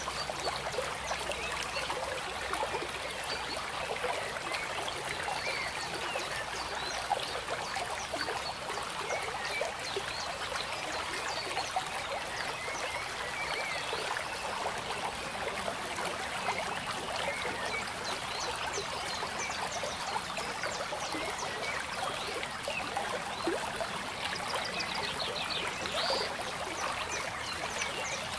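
Running water, like a stream trickling and gurgling steadily.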